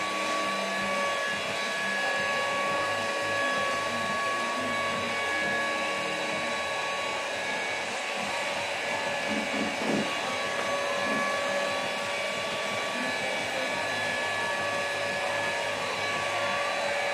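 A steady whirring hiss with a constant high-pitched whine running through it.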